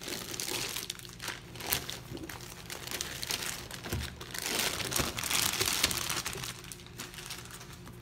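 Clear plastic wrapping bag crinkling and rustling as a sneaker wrapped in it is handled and pulled out. It is loudest a little past the middle and dies down near the end.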